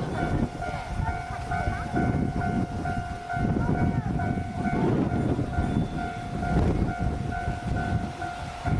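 Japanese level-crossing warning bell ringing in a steady repeating electronic ding, over the low, rising and falling rumble of a freight train hauled by an EF66 100-series electric locomotive passing on the rails.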